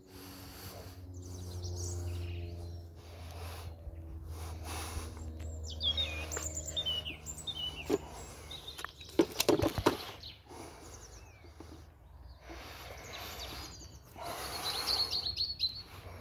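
Outdoor ambience with small birds chirping: short chirps about six to seven seconds in and again near the end, over a low steady hum. A brief cluster of sharp clicks about nine seconds in is the loudest sound.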